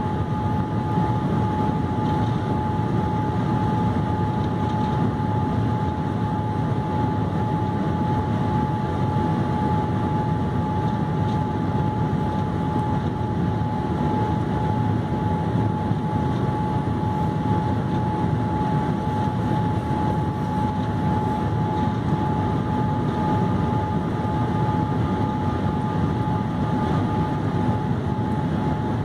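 Steady cabin noise inside a Boeing 787-8 airliner on approach with the flaps extended: a low, even rush of engine and airflow noise with a steady high whine over it.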